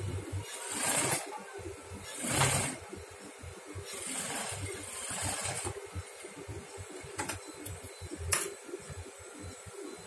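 Cotton fabric rustling in swells as it is gathered and folded by hand, with a couple of sharp clicks near the end.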